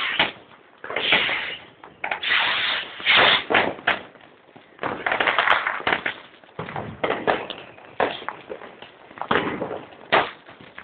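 Fireworks going off: a string of sudden bangs and crackling bursts, roughly one every second or so.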